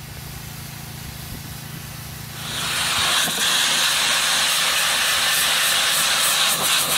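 Steam cleaner's lance hissing steadily as it blasts steam onto the weathered stonework of a fountain, low-pressure steam being used because the stone is brittle. For the first two and a half seconds the hiss is fainter, over a steady low hum; then it comes in loud.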